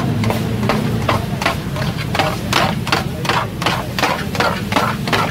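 Metal spatula chopping cooked chicken on a flat iron griddle: rapid, even clanking strikes, about four a second, over a steady low hum.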